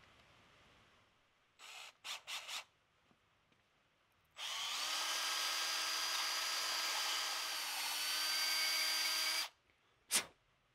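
Cordless drill: a few short bursts about two seconds in, then the motor spins up and runs steadily for about five seconds, dropping slightly in pitch partway through, and stops. One more short blip comes near the end.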